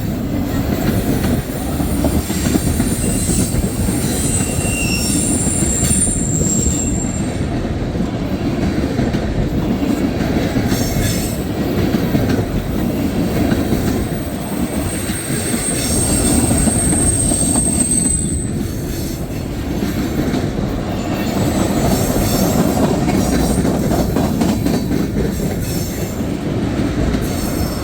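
Freight cars of a long mixed freight train rolling past close by: steady wheel rumble and clatter on the rails, with thin, high wheel squeals from about a second in and again near the middle.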